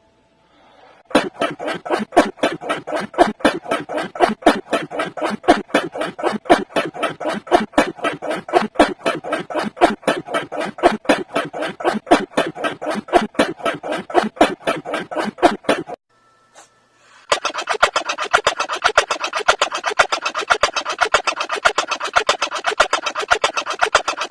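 A person's sneeze, 'achoo', repeated over and over at a rapid, even rate of several a second. After a short break about two-thirds of the way through, the sneezes resume faster and higher-pitched.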